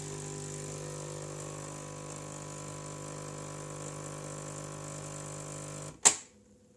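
Dolce Gusto capsule coffee machine brewing espresso: its pump hums steadily, then cuts off about six seconds in with a sharp click as the brew ends.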